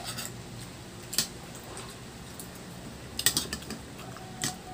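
Metal spoon and fork clinking and scraping against ceramic dinner plates while eating. There are a few short, sharp clinks, with a quick cluster of them about three seconds in.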